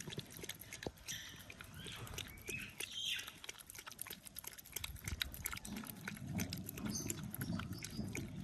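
A corgi eating wet food from its bowl, lapping and slurping the broth in a quick run of wet clicks.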